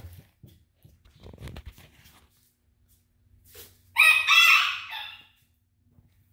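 A chicken calls once, loudly, about four seconds in: a short note, then a longer pitched note, about a second and a half in all.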